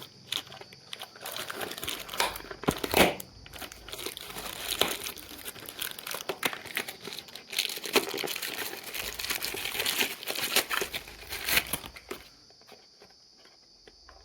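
Packaging crinkling and tearing as a parcel is opened by hand, with dense rustling and sharp snaps; it stops about twelve seconds in.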